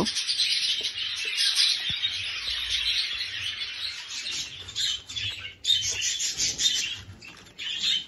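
A flock of budgerigars chattering, a dense mix of high chirps and warbles that thins out briefly about five and a half seconds in and again near the end.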